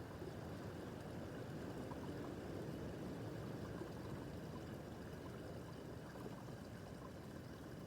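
Small brook babbling: a steady rush and trickle of water running over stones.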